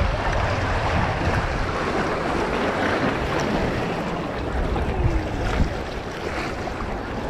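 Surf washing on the beach under strong wind, with the wind buffeting the microphone in a steady low rumble.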